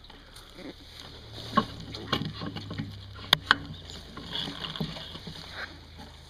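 Irregular knocks and rattles of a crashed Honda CB500 being handled, with a camera mounted on it, over a low steady hum. The two sharpest knocks come close together about three and a half seconds in.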